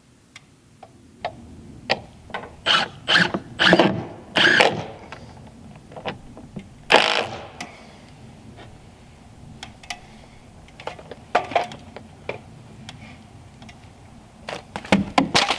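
Irregular series of sharp knocks and clicks, with a quick run of loud ones about two to five seconds in, a single loud knock about seven seconds in, and lighter scattered ones after.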